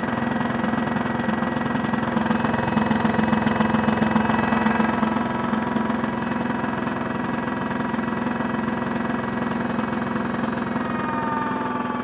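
Modified Miele W1 toy washing machine running a rinse: its small electric motor hums steadily as the drum turns with water inside. It gets a little louder a few seconds in, and a whining tone shifts in pitch near the end.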